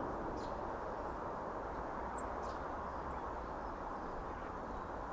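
Steady outdoor background noise with a few faint, short, high bird chirps, about three in all, spread across the few seconds.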